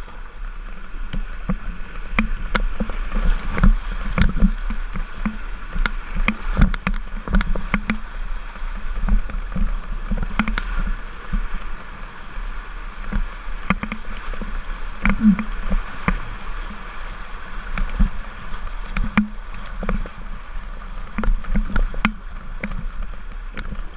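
Whitewater rapids rushing around a kayak, with irregular paddle splashes and sharp slaps of water against the hull.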